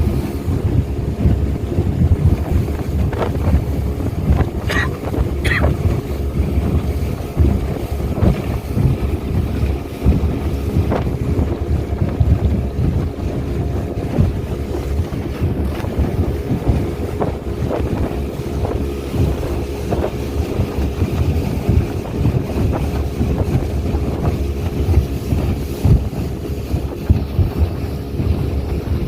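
Speedboat engine running steadily at speed, with water rushing and knocking against the hull and wind buffeting the microphone.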